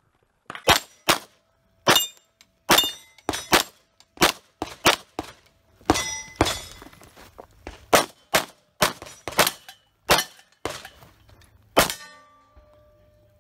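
Rapid pistol fire, about two dozen shots in quick strings, with steel targets ringing and clanging on hits. The shooting stops about 12 s in.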